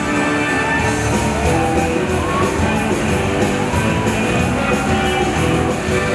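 Background music: upbeat rock with guitar and a steady beat.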